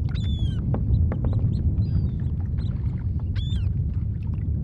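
Gulls calling as they fly low over the water: short calls scattered throughout, with two louder drawn-out calls near the start and about three and a half seconds in. Underneath runs a steady low rumble of wind.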